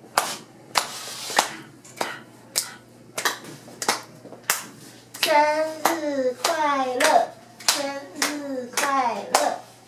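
Steady hand clapping, roughly three claps every two seconds. From about halfway through, a voice sings along in time with it.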